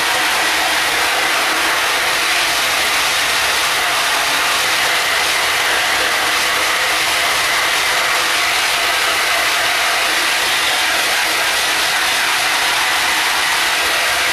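Hand-held hose spray nozzle jetting a steady hiss of water against a silkscreen's mesh, rinsing out the still water-soluble emulsion to open up the stencil.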